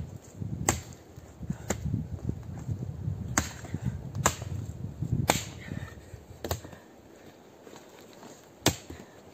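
A Bellota axe chopping pine branches on the ground, about seven sharp chops at uneven intervals, with the loudest one near the end.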